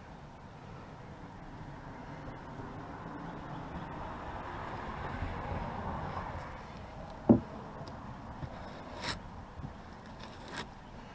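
Spatula scraping and spreading expanding spray foam on foam-board insulation, a rustling scrape that builds over the first several seconds, then one sharp knock about seven seconds in and two short clicks near the end.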